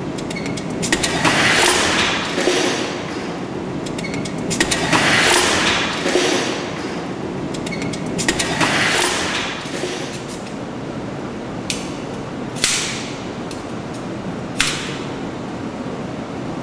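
Utility knife slicing through the sheath of a loaded kernmantle rope: three long rasping cutting strokes with snapping fibres, then a few single sharp clicks, over a steady background hiss.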